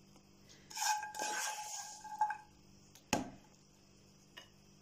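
Wooden spoon scraping and knocking against a frying pan while fried walnuts are spooned out, the pan ringing briefly about a second in. A single sharp knock follows about three seconds in, then a faint tick.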